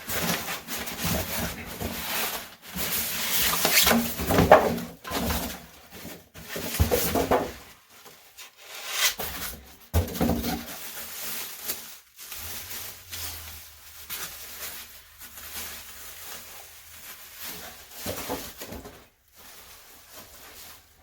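Styrofoam packing and a cardboard box being handled and pulled apart, in irregular bursts of rubbing, scraping and squeaking, as the compressor is lifted out of its packaging.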